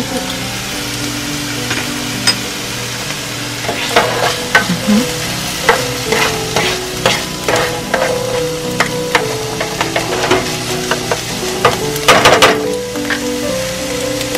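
Diced mushrooms sizzling in a nonstick frying pan, stirred and scraped with a plastic spoon. The stirring clicks and scrapes come thick from about four seconds in and are loudest near the end.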